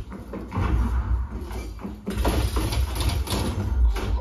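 Shooter-game sound effects played through an onn Blast 5.1.2 Dolby Atmos soundbar with subwoofer: a deep bass rumble under repeated sharp bangs and knocks, about one every second.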